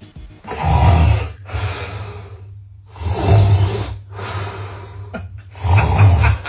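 A man's loud snoring: three long snores about two and a half seconds apart, each followed by a quieter tail.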